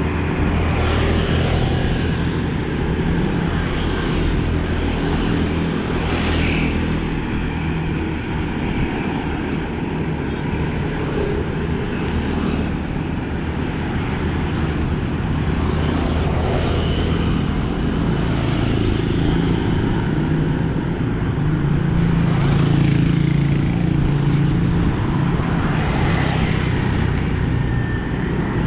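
Bicycle tyres rolling steadily along a road, with a continuous low rumble beneath the tyre noise.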